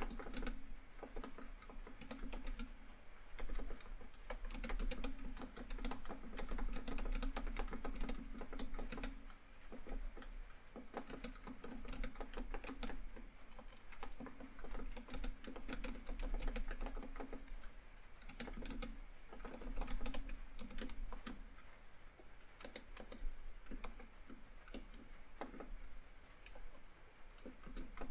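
Typing on a laptop keyboard, quick runs of key clicks broken by brief pauses, over steady rain on a tin roof.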